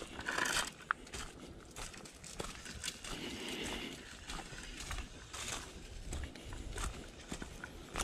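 Footsteps of a hiker walking a woodland trail, with irregular crackles and rustles underfoot.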